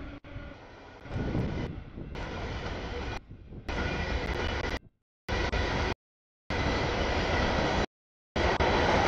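Freight train passing: the steady rumble and clatter of rail cars on the track, broken by several sudden silent gaps from about five seconds in where short clips are cut together.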